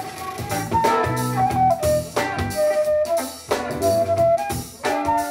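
Live funk band with a flute solo: a transverse flute plays a line of held notes and short runs over drum kit, bass and guitar.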